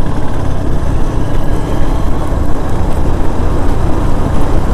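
Hero Xtreme 160R motorcycle on the move: a steady, loud low rumble of wind buffeting the helmet microphone together with engine and road noise.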